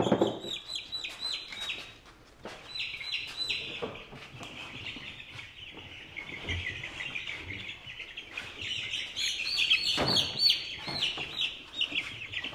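A brood of young chicks peeping continuously, a dense chorus of short, high, downward-slurred peeps. A thump sounds right at the start and another about ten seconds in.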